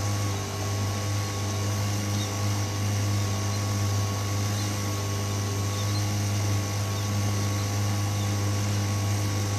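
Small outboard motor on a fishing skiff running at a steady speed, a constant drone that holds one pitch, over the hiss of water rushing past the hull.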